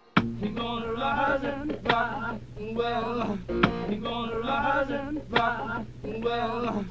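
Background music with a steady beat, cutting in abruptly just after the start.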